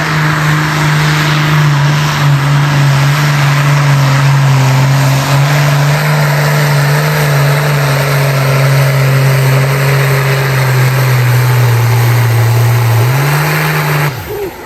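Pro Stock pulling tractor's single-turbo diesel engine running at full throttle as it drags the weight sled, its pitch sagging slowly under the load. Near the end the pitch rises briefly, then the engine sound cuts off abruptly as the pull ends.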